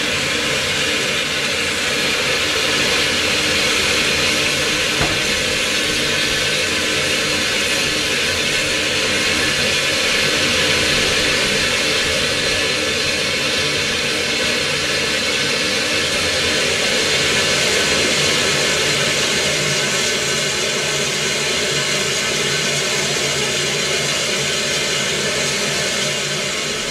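Steam hissing steadily from the Mount Washington Cog Railway steam locomotive Waumbek No. 9 as it stands, with no exhaust beat.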